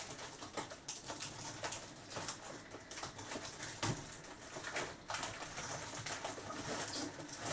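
Faint, scattered clicks and knocks of household items being handled out of sight.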